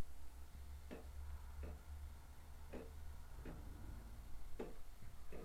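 3D-printed mechanical clock ticking, six ticks at about one a second with an uneven tick-tock beat, the gaps alternating shorter and longer.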